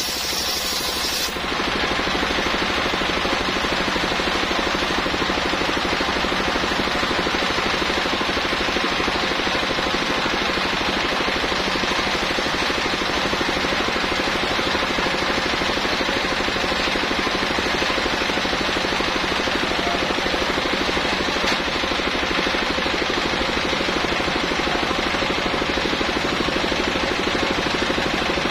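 Circular saw rig for ripping coconut palm trunk into beams, running steadily with a fast mechanical pulse. A high hiss at the start falls away a second or so in, leaving the even running sound.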